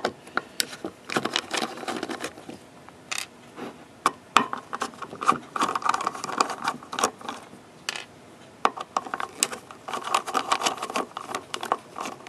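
Small screwdriver backing out the lid screws of a Seagate Barracuda hard drive: irregular sharp metal clicks and ticks, with short stretches of scraping as the screws turn.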